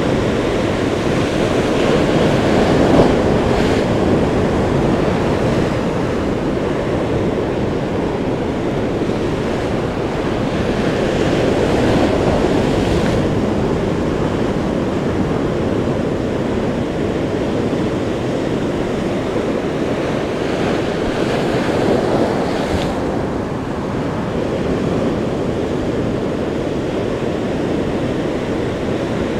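Ocean surf: waves breaking and foaming wash rushing in, swelling louder with each set, about every ten seconds.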